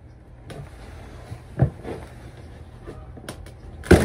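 Old wooden floor board being pried up by hand: faint scraping and a sharp knock about one and a half seconds in, then near the end the board breaks free with a loud run of cracks and clatter.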